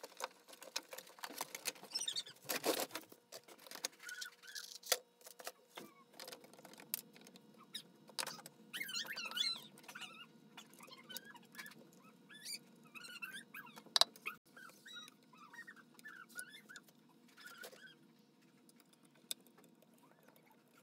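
Small plastic and metal parts being handled and fitted into an RC excavator body: scattered clicks, taps and light rattles, with a sharper knock about 14 seconds in. Faint high squeaks come and go through the middle.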